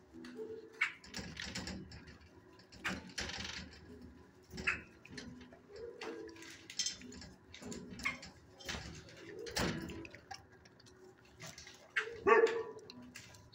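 Shelter dogs barking on and off, mixed with short knocks and clatter; the loudest bark comes near the end.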